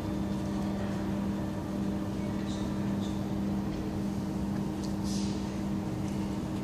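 Steady mechanical hum of an underground metro station, with a constant low tone running under an even rumble.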